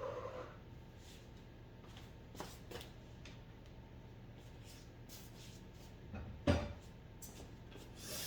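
Scattered light clicks and knocks of kitchen items being moved and set down, with one louder knock about six and a half seconds in.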